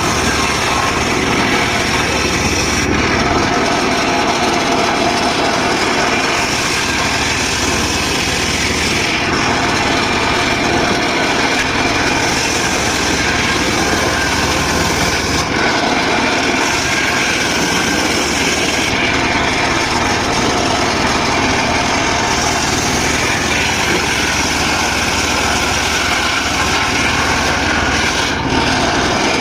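Engine-driven circular saw running steadily while sawing dry teak wood.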